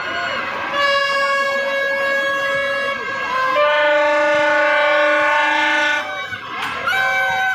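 Long, steady horn notes blown over crowd noise: one held from about a second in until about three seconds, then a lower, slightly louder one from about three and a half to six seconds in, and a short toot near the end.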